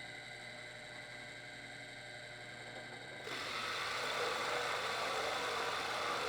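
Electric power tool motor running with a steady hum, turning louder and rougher about halfway through.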